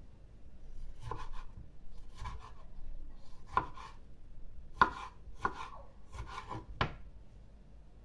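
A kitchen knife chopping on a wooden cutting board, cutting up tomatoes: about eight sharp, irregularly spaced chops.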